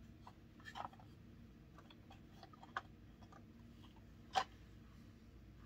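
Faint, scattered clicks and light knocks of a plastic G.I. Joe Havoc toy vehicle being handled and turned over, with one sharper knock about four and a half seconds in.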